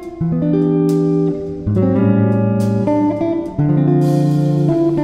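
Background music: a guitar piece playing plucked chords that change every second or two.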